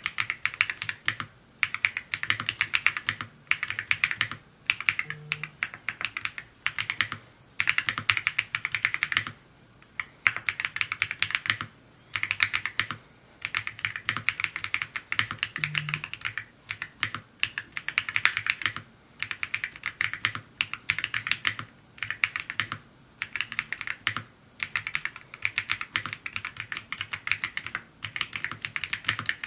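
Evo80 mechanical keyboard being typed on at a steady pace: quick runs of key clicks and clacks in word-length bursts, broken by short pauses.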